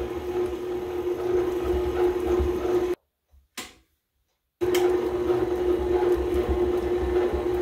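KitchenAid stand mixer running at a steady speed with a constant motor hum, its beater creaming softened butter in the steel bowl. The sound drops out for about a second and a half midway, then resumes unchanged.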